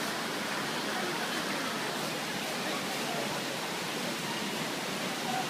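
Steady rush of flowing river water, an even hiss with no distinct splashes.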